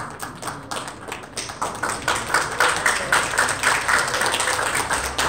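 Audience applauding, a crowd's hand-clapping that thickens and grows louder about a second and a half in.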